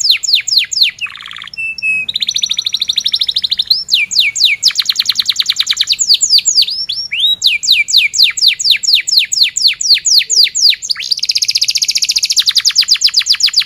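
Yellow domestic canary singing a loud, continuous song. Runs of quick high notes, each sweeping downward, alternate with very fast trills, the longest trill near the end.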